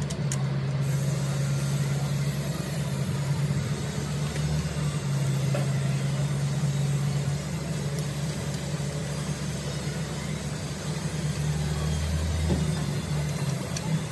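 A running engine off to the side, a steady low drone with a constant pitch. A few faint metal clicks from a hand wrench come and go over it.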